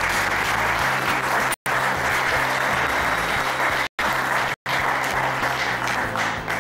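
Audience applauding steadily over background music, the sound dropping out briefly three times.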